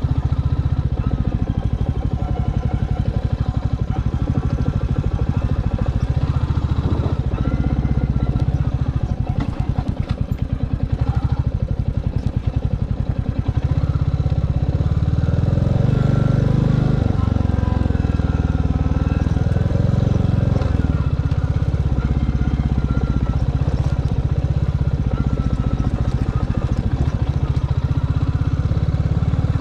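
Royal Enfield Classic 350's air-oil-cooled single-cylinder engine running as the motorcycle rides a rough dirt track, getting louder from about halfway through.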